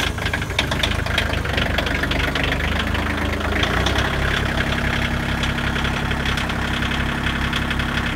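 Kioti CK2610 compact tractor's three-cylinder diesel engine running at a steady idle, freshly started; its low note shifts slightly about four seconds in.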